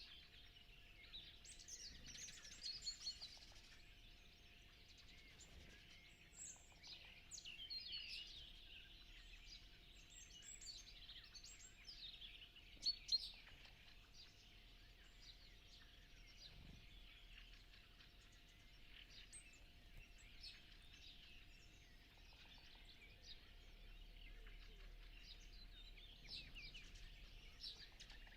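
Faint dawn chorus of many songbirds in the countryside: overlapping chirps, whistles and trills from several species, busier in the first half, with a brief louder call about halfway through. A faint steady tone lies underneath.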